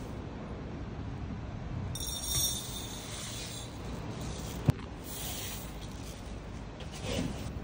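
Dry uncooked rice pouring into a glass bowl, a rustling hiss that comes in spells, with one sharp clink about halfway through.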